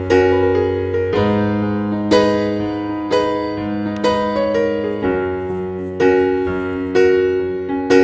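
Background piano music: chords struck about once a second, each left to ring and fade before the next.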